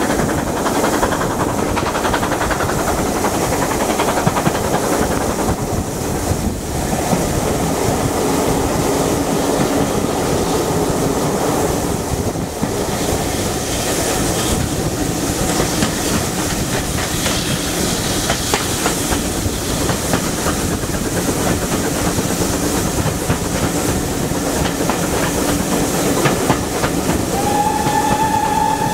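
Steam train heard from an open carriage window behind two BR Standard Class 9F 2-10-0 steam locomotives: steady running noise of the wheels on the rails. Near the end a locomotive steam whistle starts, one held note that slides up slightly at first.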